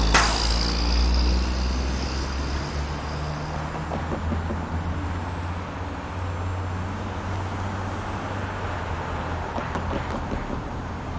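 Suburban street traffic: a motor vehicle's engine running close by with a low hum, a sharp clack right at the start followed by a fading high ring, then the engine hum and street noise growing gradually quieter.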